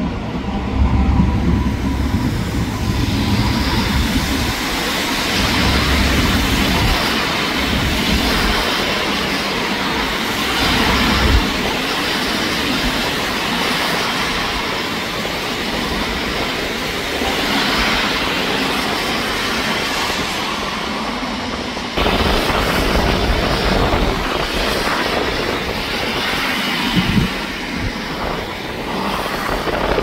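City street traffic noise: a tram rumbling past at first, then a steady wash of road traffic. The sound changes abruptly about two-thirds of the way through, where the shot is cut.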